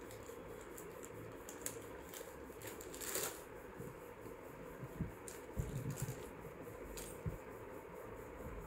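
Faint clicks and rustles of a bead necklace being handled, its beads and wire links knocking lightly together, over a steady low hiss.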